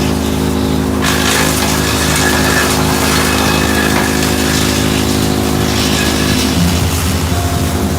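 Victory BX-102RS PTO-driven wood chipper running behind a tractor with a steady engine drone. From about a second in, a harsh rough rush of wood being chipped joins it for about five seconds, and a deeper pulsing comes in near the end.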